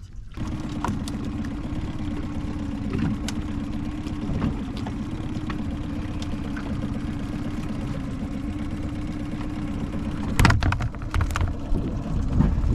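A boat's engine idling steadily with a low, even hum. About ten seconds in, a short burst of knocks and clatter sounds over it.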